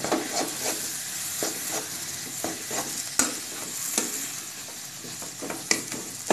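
Mashed aubergine and potato mixture sizzling in oil in a metal kadai while a metal spatula stirs and scrapes it, in irregular strokes with a few sharp clinks of the spatula striking the pan.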